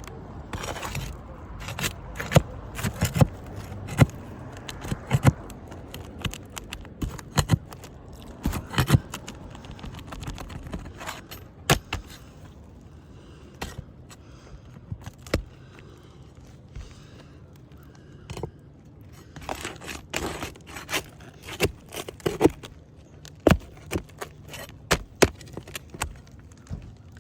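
A damaged asphalt roof shingle being pried out: repeated sharp clicks, knocks and scrapes of a tool against the shingles. The work comes in two busy spells with a quieter scraping stretch between them.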